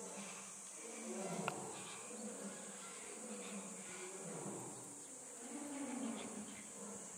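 Flying insects buzzing close by, their hum swelling and bending up and down as they pass, over a steady high drone of insects. There is one sharp click about a second and a half in.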